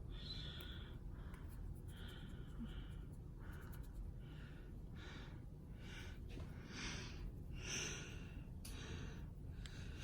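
Faint, irregular breathy hissing from a person close to the microphone, about a dozen short puffs, over a low steady hum.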